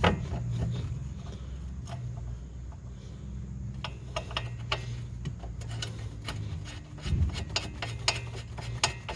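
Scattered light metallic clicks and clinks from hand tools and bolts being handled during front suspension work, heard over a steady low hum.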